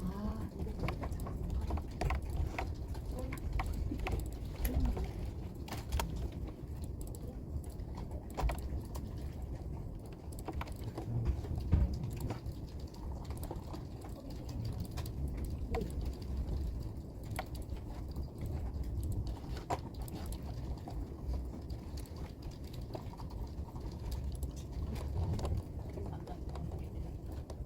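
Typing on a computer keyboard: irregular key clicks over a low, steady hum.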